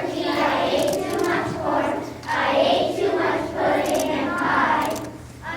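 A group of children singing together in phrases, with short breaths between them.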